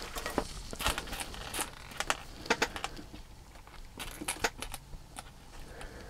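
Small model-kit parts and screws being handled on a work table: about a dozen light, scattered clicks and taps.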